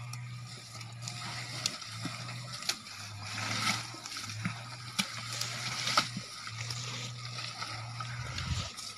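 Wet mud squelching and splattering as an elephant rolls and shifts its body in a mud wallow, with scattered sharp slaps. A steady low hum runs underneath, breaking off briefly a few times.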